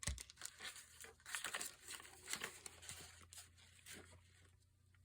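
Paper and cardstock rustling and shuffling as pieces are handled and moved about on a craft desk, with a soft thump at the start and small clicks and scrapes throughout.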